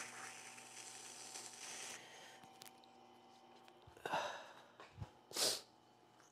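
Low-speed wet whetstone grinder running with a steady motor hum, a small steel extruder gear shaft held against the stone for the first two seconds with a faint scratchy grinding hiss as a protruding part is ground down. Near the end come two short breathy puffs.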